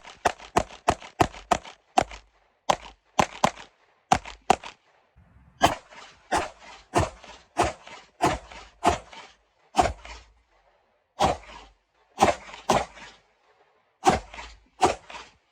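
9mm Glock 45 Gen 5 pistol firing about thirty rounds in quick strings, two to four shots a second, with short breaks between strings.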